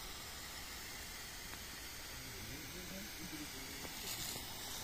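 Steady hiss of water jetting from a fire hose, with faint voices underneath from about halfway through.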